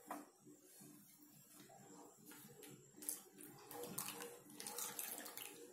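Faint scraping and swishing of a wooden spatula stirring thickening milk in a nonstick pan, as dissolved custard mixture is poured in in a thin stream.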